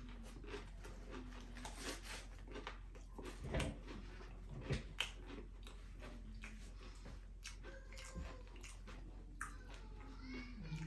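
A person chewing and biting food close to the microphone, with scattered faint crunches and a few louder ones.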